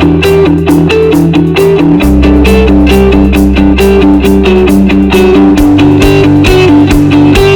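Background music: a guitar instrumental with a steady beat and a bass line that changes note twice.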